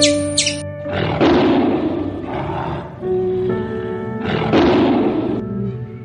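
A large animal roaring twice, each roar long and rough, over background music with steady held notes; short high chirps end about half a second in.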